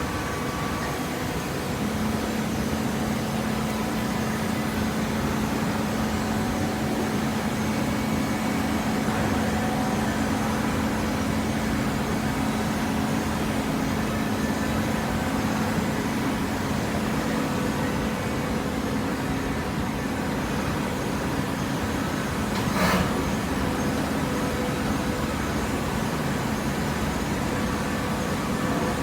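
Automatic horizontal hydraulic cardboard baler running: a steady mechanical drone with a steady hum that sets in about two seconds in, and one brief sharp noise about 23 seconds in.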